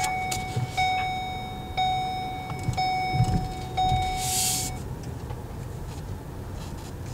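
A car's dashboard warning chime ringing about once a second, five times, then stopping about five seconds in, over low in-cabin road and engine noise while driving slowly. A short hiss comes just after the fourth second.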